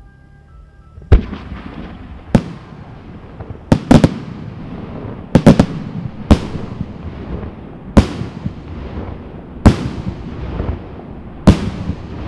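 Aerial firework shells bursting in a pyrotechnic display: about a dozen sharp bangs starting about a second in, roughly every one and a half to two seconds, some in quick doubles and triples, each trailing off in a rolling echo.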